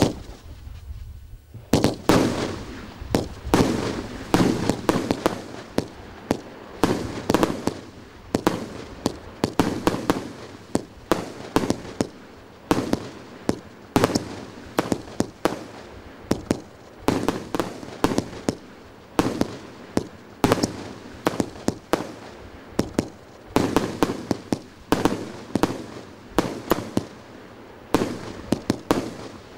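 Fireworks going off in a rapid, continuous series of launches and sharp bursting reports, several a second. It starts about two seconds in after a single thump.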